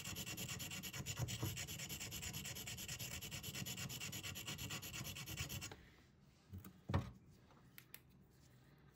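Quiet, rapid back-and-forth hand sanding with a sanding stick on the polished window of a sand-stripped Moxisha jadeite rough, at about five strokes a second. The sanding stops about six seconds in, followed by a couple of light knocks.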